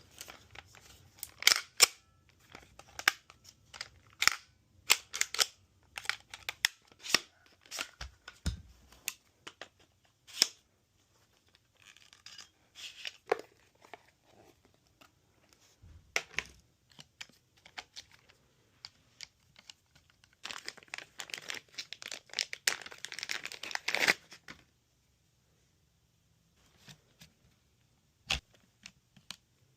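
Parts of an airsoft MK18 replica being handled and fitted together: a run of sharp clicks and knocks, then a dense stretch of rattling and rustling about two thirds of the way through, and one sharp click near the end.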